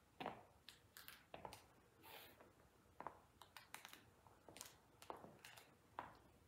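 Faint taps and clicks of Christian Louboutin Spikaqueen stiletto heels stepping on a hard wood-look floor, irregular, about two a second, with a few soft scuffs of the soles.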